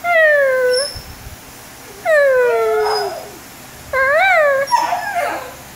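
A basenji's howling vocalizations: three drawn-out, pitched calls about two seconds apart. The first two slide down in pitch, and the third rises and then falls. A rougher, broken call follows near the end.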